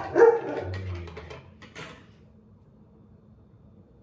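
A dog barks twice right at the start, followed by a few light clicks and knocks, then quiet room tone.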